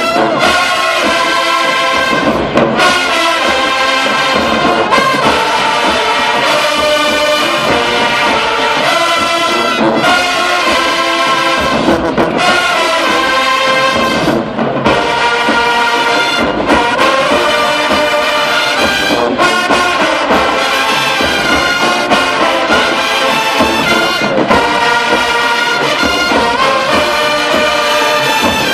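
College marching band brass section playing loudly, trombones and trumpets to the fore, with a few short breaks in the phrases.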